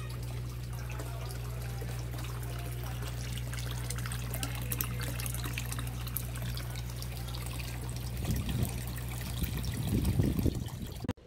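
Water pouring from a PVC pipe outlet into a fish pond, splashing onto the water surface, over a steady low hum. The splashing grows louder about eight seconds in and cuts off suddenly near the end.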